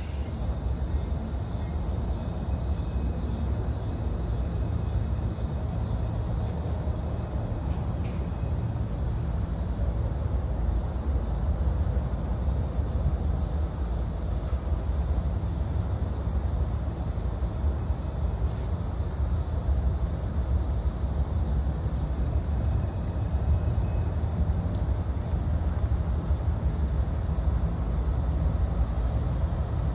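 Low, steady rumble of a freight train's diesel locomotives approaching from a distance, growing a little louder near the end, with a steady high hiss over it.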